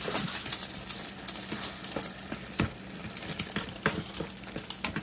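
A spoon stirring macaroni, ground beef and cheese in a pan of simmering, starchy pasta water, with a light bubbling hiss and scattered clicks and scrapes of the spoon against the pan.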